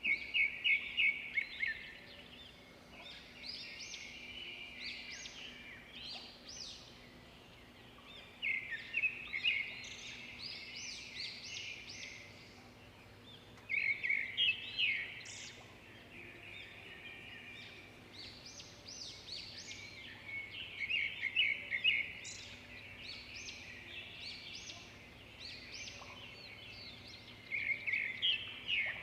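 Songbird singing: loud phrases of rapid, repeated high notes come about every six to seven seconds, with softer chirps and whistled notes in between.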